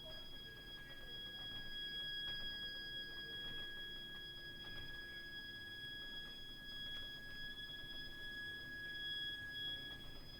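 Heating system's heat interface unit (HIU) and pipework giving off a continuous, shrill, high-pitched shriek: one steady tone with higher overtones, unchanging in pitch. It is an abnormal plumbing fault noise.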